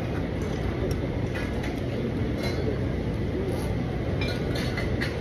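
Crowded food court background: a steady low hum of indoor crowd noise with distant voices and a few light clinks of cutlery and dishes.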